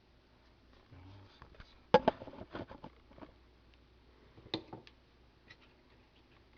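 Needle-nose pliers clicking and tapping against a small metal mounting bracket as it is bent by hand. The loudest clatter comes about two seconds in, with a second short run of clicks a couple of seconds later.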